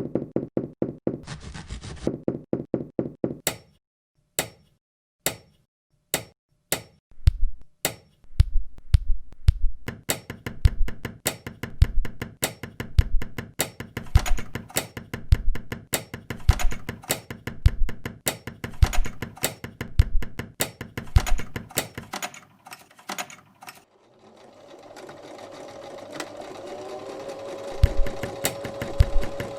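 Shoemaking sounds in a rhythmic sequence. Quick runs of clicks give way to a steady beat of low knocks, about one and a half a second, under dense clicking from a stitching machine and hammer. After a short lull, a machine motor hums steadily for the last few seconds, and the knocks start again near the end.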